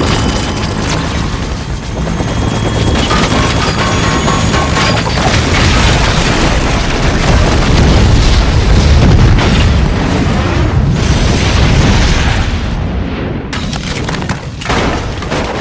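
Film sound mix of a house explosion and fire: continuous deep booming rumble that builds and peaks past the middle, with dramatic score music underneath.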